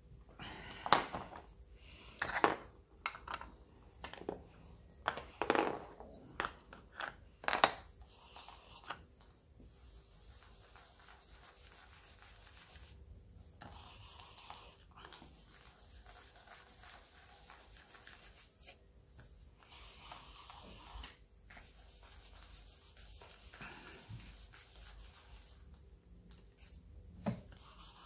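A few sharp knocks and rustles of craft supplies being handled in the first eight seconds, then the soft, scratchy rubbing of a foam blending tool being dabbed and rubbed on a blue Distress Oxide ink pad.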